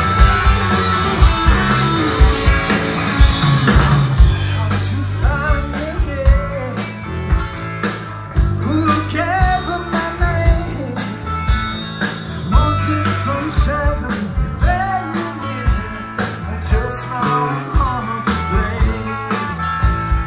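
A rock band playing live: two electric guitars, electric bass and drums with a steady beat, and a man singing from about four seconds in.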